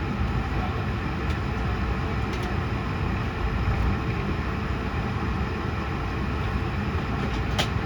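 Steady low rumble and hiss of an Airbus A220's cabin noise, with a single short click near the end.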